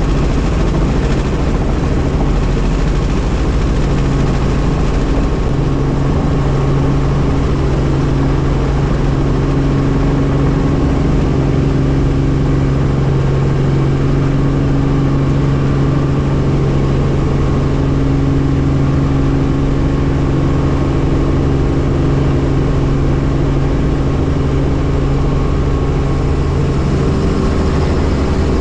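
Helicopter engine and rotor running steadily, a constant low hum over a broad rushing noise.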